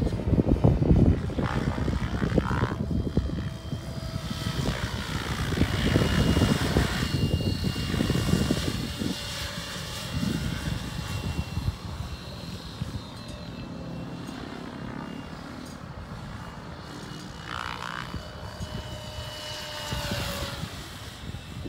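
Mikado LOGO 700 radio-controlled helicopter in flight: a steady high motor whine over rotor noise that swells and fades as it moves closer and farther. Gusty wind buffets the microphone, loudest at the start and near the end.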